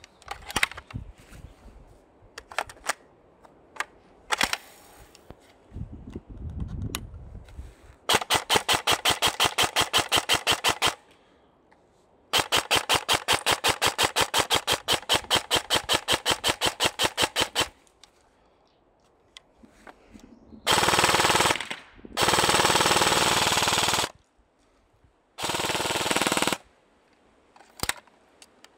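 Airsoft guns firing: scattered single shots, then two long full-auto bursts of rapid, evenly spaced shots, about three and five seconds long. These are followed by three shorter stretches of fire so fast it runs together, and a few single shots near the end.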